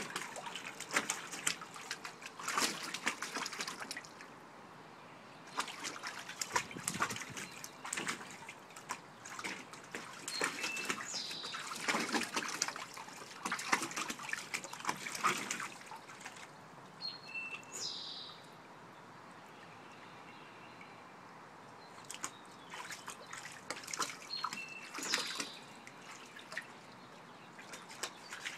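Golden Retriever puppy wading and pawing in the shallow water of a plastic kiddie pool, making irregular bursts of small splashes and sloshes with quieter pauses, the longest a little past the middle.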